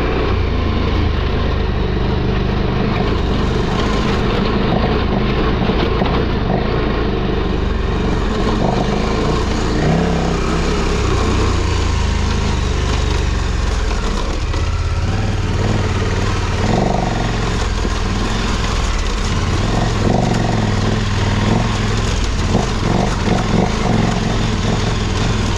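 KTM adventure motorcycle's twin-cylinder engine running hard off-road, its revs rising and falling repeatedly as the throttle is worked.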